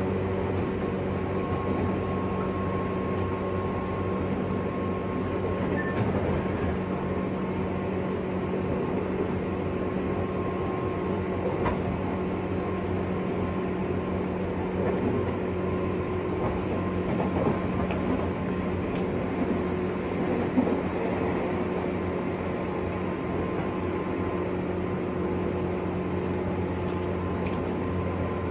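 JR West 201 series electric commuter train heard from inside a motor car while running between stations: a steady hum of motor and running gear with wheel-on-rail rumble. Its pitch holds level throughout, as at a steady speed, with a few faint clicks from the track.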